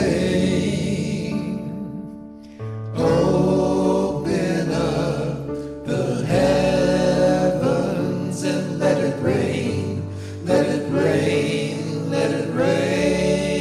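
Gospel song with a choir singing over instrumental backing and sustained bass notes. There is a brief lull about two seconds in before the voices come back in.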